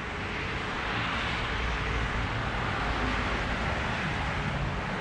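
Steady rushing noise of a passing vehicle, swelling slightly after about a second and easing off near the end.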